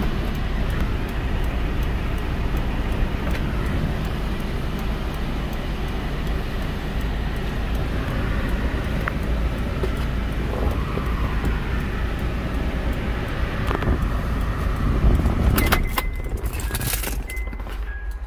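Steady low rumble and hiss of a Honda Accord 2.4 heard from inside the cabin with the engine running. About three-quarters of the way through it drops away, and a few sharp clinks and short high tones follow.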